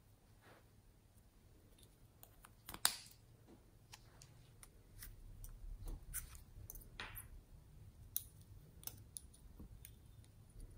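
Small plastic cosmetic containers handled and opened: scattered plastic clicks and taps with a few short rubbing swishes, one sharper click about three seconds in.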